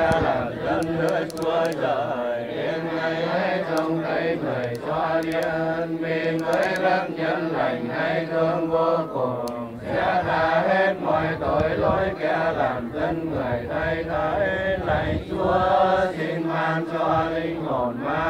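A congregation of Vietnamese Catholics chanting a prayer in unison in a sung recitation tone, many voices together over a steady low held note.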